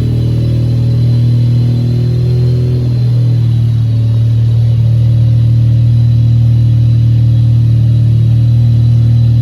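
Wankel rotary engine running at a steady speed, a constant low hum with a thin, steady high whine above it.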